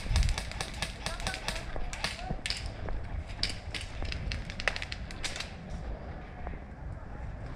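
Airsoft guns firing: quick, irregular sharp pops, several a second, thinning out after about five seconds, over a low rumble of wind and handling noise on the microphone.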